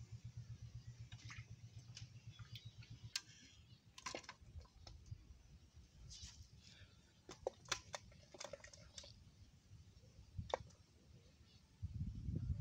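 Quiet scattered clicks and light taps from small hands handling a fishing hook, bait and an aluminium bucket. A faint low drone fades out a few seconds in, and a low rumble comes in near the end.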